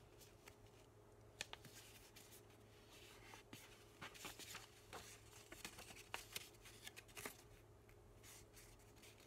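Near silence with faint, scattered paper rustles and soft creasing taps as a sheet of paper is folded and pressed flat by hand on cardboard, over a faint steady hum.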